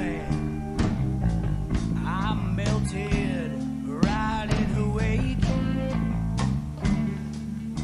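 Background rock music with guitar, held notes over a steady bass part and gliding pitched lines above.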